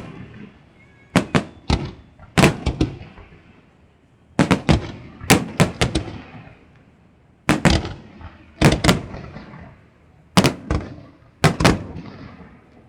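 Fireworks display: aerial shells bursting in quick clusters of two to four sharp bangs, each bang trailing off in a rumble, with a second or two of quieter gap between clusters.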